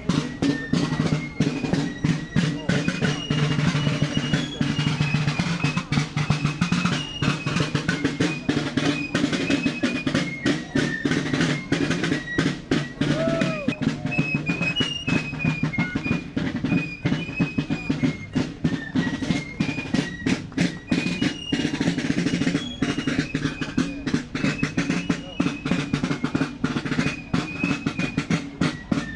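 Fife and drum corps playing a march: snare drums beating and rolling steadily under a high fife melody.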